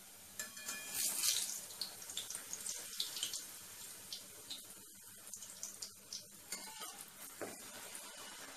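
Wheat-flour puri deep-frying in hot oil in a steel kadhai: a steady sizzle full of small crackles and pops as the puri puffs up, loudest about a second in.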